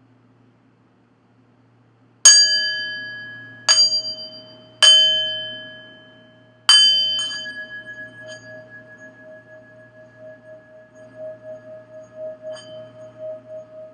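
Singing bowl struck about four times, each ring decaying slowly, then its tone sustained with a steady wavering pulse that swells near the end, as when the rim is circled with the mallet.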